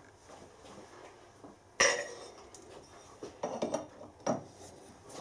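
Metal clinks of a spanner being handled and fitted to an ER collet chuck's clamping nut to tighten a milling cutter in the collet. A single sharp clink about two seconds in is the loudest, followed by a run of lighter clinks.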